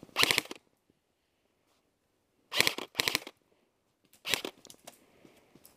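Three short bursts of full-auto airsoft fire, each a fast, even run of sharp cracks, with near silence between them.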